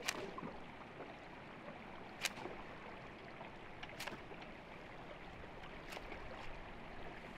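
Topwater lure being twitched across a river's surface, popping and splashing four times at about two-second intervals over a steady hiss of moving water.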